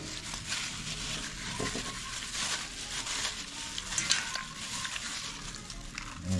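Sliced pork belly being stirred and mixed in its marinade: irregular soft stirring noises.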